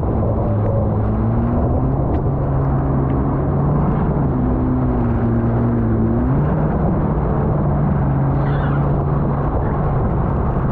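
A motor running steadily under a rushing wind and water noise, its pitch stepping up about six seconds in.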